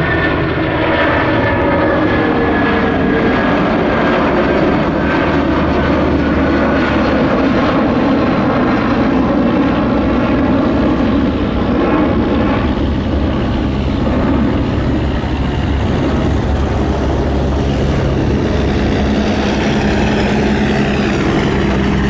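Airliner engines running loud and steady, with a high engine tone falling slightly in pitch over the first few seconds.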